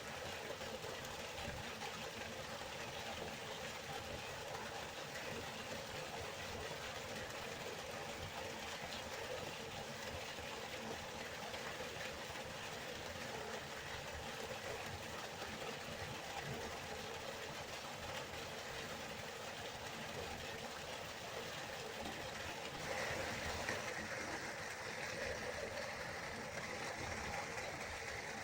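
River water flowing in a steady rush. About 23 seconds in, the sound shifts to a slightly louder, hissier rush.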